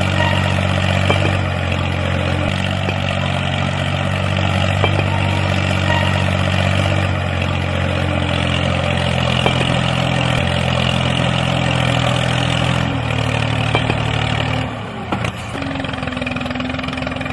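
Tractor engine running steadily, its pitch stepping down slightly a few times. About fifteen seconds in it drops away to a quieter, higher hum.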